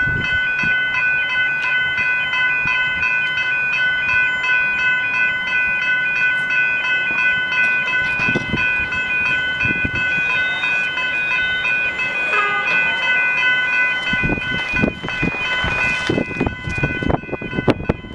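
General Signals Type 3 electronic level-crossing bells start ringing at once as the crossing activates, a loud, steady, rapidly repeating electronic ding. About fourteen seconds in a low rumble builds under the bells.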